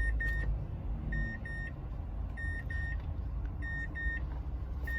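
Car's warning chime beeping in pairs of short high tones, a pair about every 1.2 seconds, over a steady low rumble inside the car.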